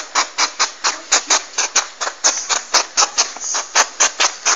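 A porcupine giving a rapid, even series of short pulses, about six a second.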